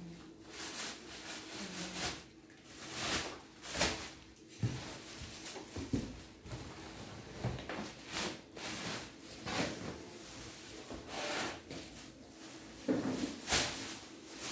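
Clear plastic wrapping rustling and crinkling in irregular bursts as it is handled and pushed into a cardboard box.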